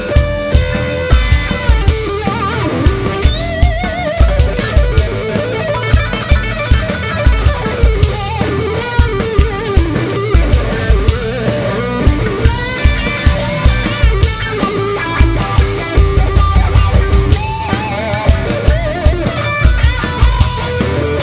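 Live rock band playing, led by an electric guitar solo on a Stratocaster-style guitar: wavering, bent lead notes over a steady drum beat and bass.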